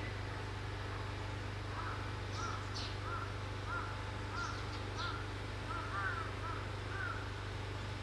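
Wild birds calling: a run of short repeated call notes about twice a second, with a few higher thin chirps mixed in. A steady low hum sits underneath.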